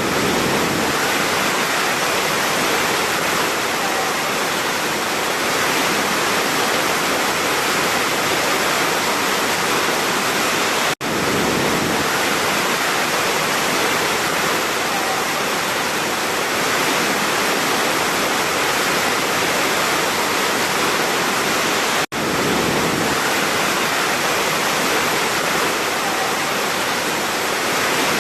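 Large waterfall: a loud, steady, even rush of falling water. The sound cuts out for an instant twice, about 11 and 22 seconds in.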